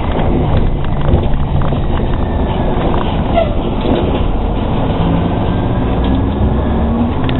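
Interior running noise of a TTC Orion VII Next Generation hybrid bus on the move: a steady drone from its diesel-electric drivetrain, with a few low tones that shift in pitch.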